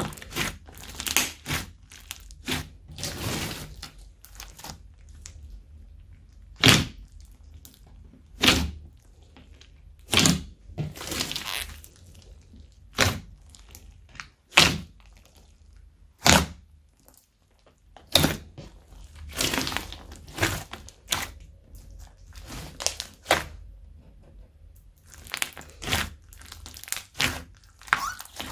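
Slime being mixed and squeezed by hand, giving irregular sharp pops and crackles as air pockets burst, a few of them drawn out into longer crackling.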